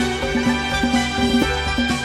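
Background music with a steady beat and many sustained pitched notes.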